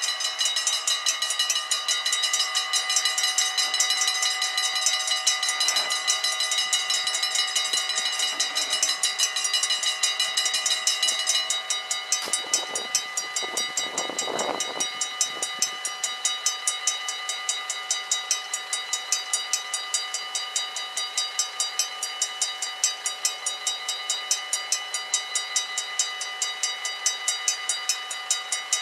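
Level-crossing warning bell ringing rapidly and continuously, with several steady ringing tones, as the half-barriers lower. The sound of the bell changes slightly about 12 seconds in, and a brief swell of lower noise rises and fades soon after.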